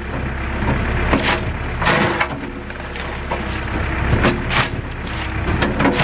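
A backhoe loader's bucket crushing a laptop into gravel, giving several sharp cracks and crunches of breaking plastic, glass and metal, a second or two apart. Under them runs the low, steady sound of the machine's diesel engine.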